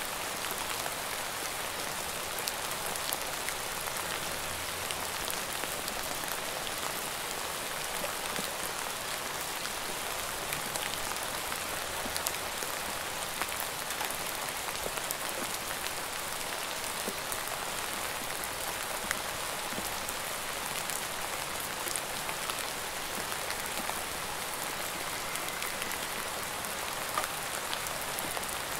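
Steady rain falling: an even hiss of patter with many small, separate drop ticks scattered through it.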